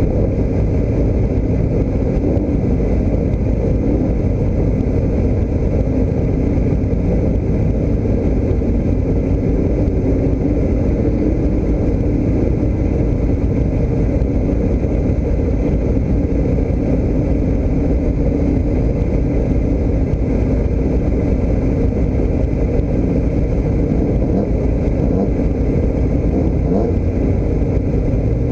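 A vehicle engine running steadily under a heavy low rumble. Its pitch drifts slightly, then rises right at the end.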